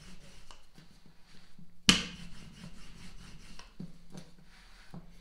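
Wooden rolling pin rolling pie-crust dough on a floured wooden board: soft repeated rubbing strokes, then a sharp wooden knock about two seconds in and a few lighter knocks after it.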